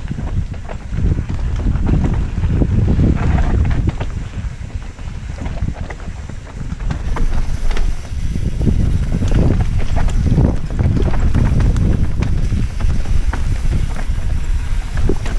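Wind rumbling on a helmet-mounted camera's microphone as a mountain bike descends a rough dirt trail, with frequent sharp clicks and rattles from the bike jolting over the ground.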